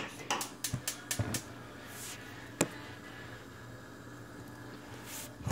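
Handling noise of a phone being moved around in the hand: a quick run of clicks and rustles in the first second and a half, one more sharp click about two and a half seconds in, then only a low steady hum with a brief soft hiss near the end.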